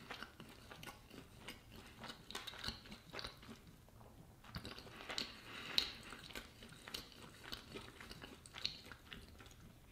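Faint chewing of a mouthful of banitsa, a flaky cheese-filled filo pastry, with small scattered clicks and soft crunches.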